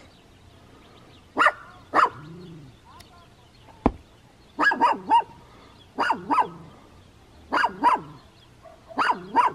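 Small dog barking repeatedly and agitatedly at the person, worked up enough to want to bite. The barks come singly at first, then in quick pairs and triples about every one and a half seconds. There is a single sharp click about four seconds in.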